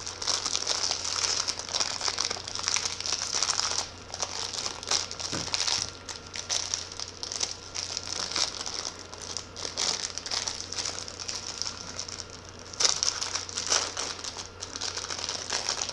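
Packaging crinkling and rustling as it is handled and opened, an irregular run of fine crackles that eases off in the middle and comes back strongly near the end.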